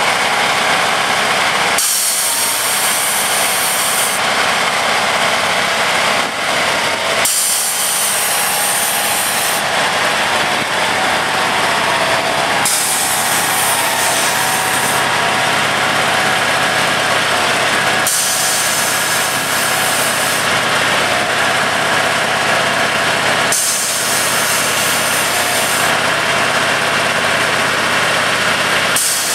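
Railway track tamper's engine and hydraulics running steadily and loudly while the machine stands on its own jack legs to unload itself from a lorry. A high hiss cuts in and out every few seconds over the steady running.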